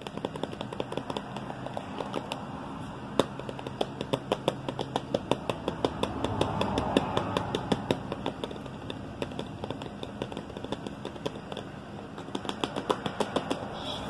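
Fingernails tapping and scratching on a small sauce bottle: rapid, irregular clicks, thickest in the middle and again near the end.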